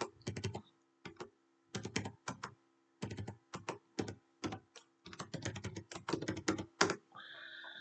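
Computer keyboard typing: quick runs of keystrokes with short pauses between them as numbers are keyed into a spreadsheet.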